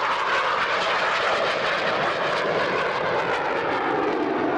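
A CF-18 Hornet fighter's twin General Electric F404 turbofan engines in flight, a loud, steady rushing jet noise as the aircraft passes and pulls up.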